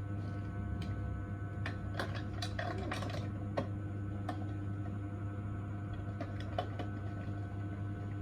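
Steady electrical or mechanical hum, with a few light clicks and clinks of small metal instruments, most of them bunched between about two and three and a half seconds in.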